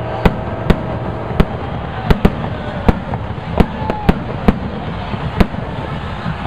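About a dozen sharp bangs going off at irregular intervals over a steady rushing hiss.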